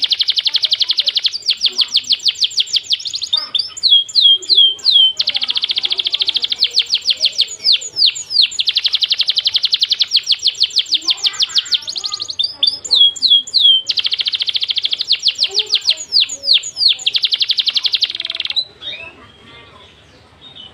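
A small songbird singing a fast rolling trill of rapid high notes, broken every few seconds by short runs of quick downward-slurred notes. The song stops near the end, leaving only faint sounds.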